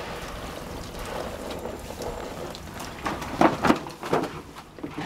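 Water hissing steadily from a garden hose spray nozzle into a vinyl paddling pool. About three and a half seconds in come a few loud splashes and crinkles of the pool's plastic as someone handles its edge.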